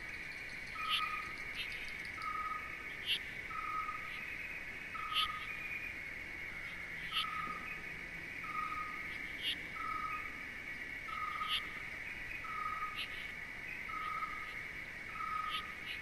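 Nature ambience: a steady high insect drone, with a bird repeating a short, even note about once a second and sharper high chirps about every two seconds.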